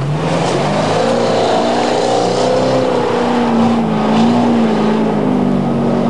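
Range Rover Classic's 4.7-litre V8 engine labouring under load off-road, its pitch slowly rising and falling as the throttle is worked.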